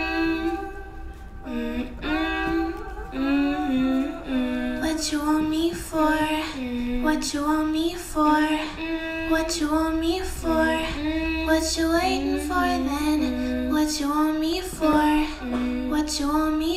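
Music: a song with a woman's voice singing a melody over light accompaniment.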